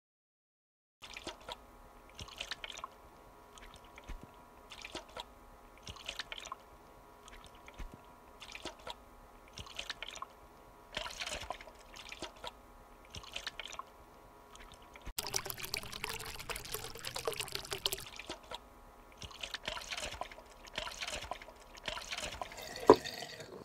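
Short hissy rustling bursts repeat about once a second over a steady faint hum. Near the end a glass mason jar tips over and strikes a desk in one sharp knock, the loudest sound.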